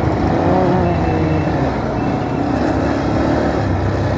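Bajaj Pulsar 220F's single-cylinder engine running as the motorcycle rides slowly through street traffic, its pitch rising and falling a little with the throttle.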